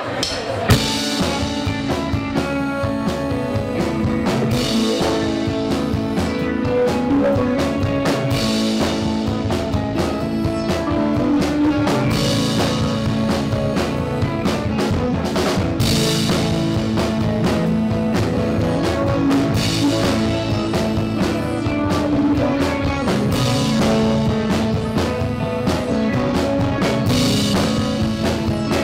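Live rock band playing amplified electric guitars over a drum kit, with a cymbal crash roughly every four seconds.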